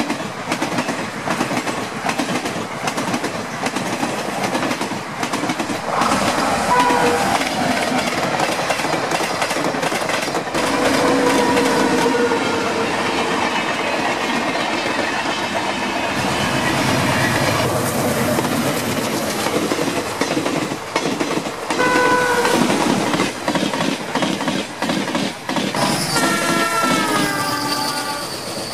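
Passenger coaches rushing past at high speed, their wheels clattering rapidly over the rail joints. Locomotive horns sound in short blasts several times. Near the end a horn falls in pitch as it passes.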